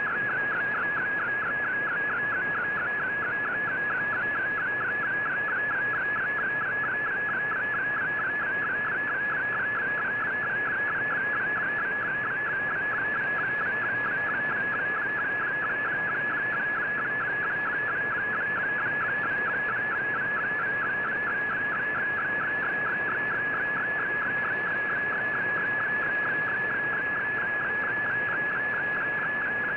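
Slow-scan television (SSTV) image signal received over shortwave radio: a warbling tone pulsing in a fast, even rhythm line by line over steady static hiss, settling to a steadier tone near the end.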